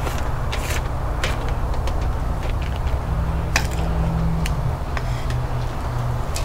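Metal kitchen tongs clicking and scraping as seasoned fish fillets are picked up from a bamboo cutting board and laid onto foil on a charcoal grill, a few separate sharp clicks over a steady low rumble.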